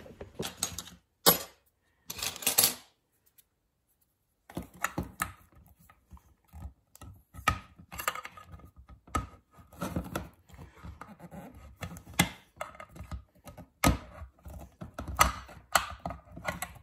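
Small homemade flat-blade can opener punching and cutting around the rim of a tin can lid in short levering strokes: a run of irregular metallic clicks and scrapes, after a few knocks in the first two seconds as the camera is moved. The opener is cutting the lid well.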